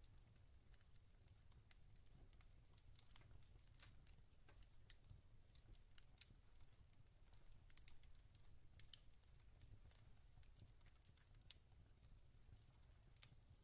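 Faint crackling of a wood fire in a fireplace: scattered, irregular pops and snaps over a low steady hum.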